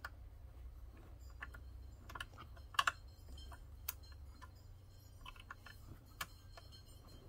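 A handful of light, scattered clicks as the Singer 15's bobbin case is fitted back into place under the needle plate, over a faint low hum.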